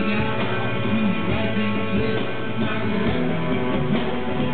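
A rock band playing live, with electric guitars to the fore in an instrumental passage without singing.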